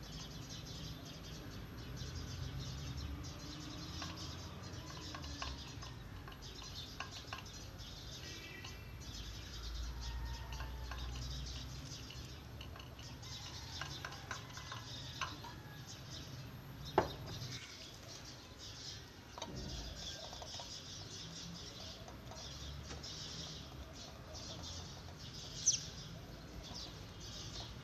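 Quiet room noise with a few light clinks of china dishes being handled and set down. The sharpest clink comes about 17 seconds in and another near the end.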